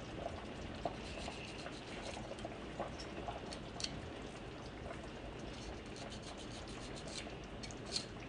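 Faint scattered clicks and soft scraping of a kitchen knife cutting and peeling the skin off conch meat on a wooden cutting board.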